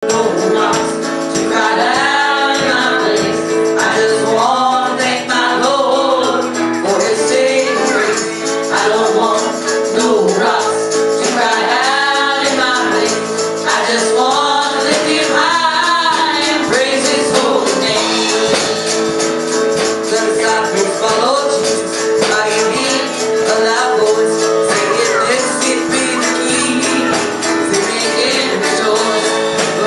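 Live gospel song: women singing a melody over a small band of piano, guitar and percussion, with steady held chords underneath and a constant tapping beat.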